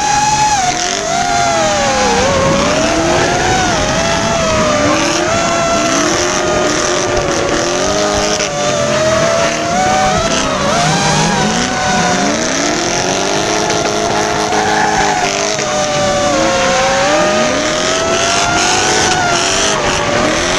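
Two drift cars running a tandem battle, engines revving up and down again and again with tyres squealing and skidding, close behind and over them the FPV drone's motors whining, their pitch wavering with the throttle.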